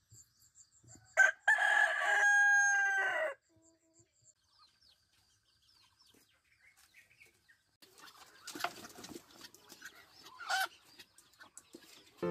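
A rooster crowing once, a long cock-a-doodle-doo of about two seconds starting about a second in. Quieter scuffling and a brief call follow near the end.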